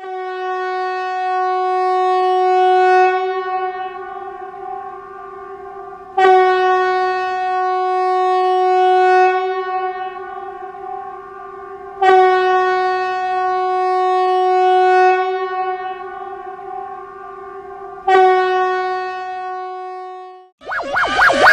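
Emergency alert tone: a steady, buzzy single-pitch tone with many overtones, sounded four times in a row, each starting sharply and lasting about six seconds, the last one shorter.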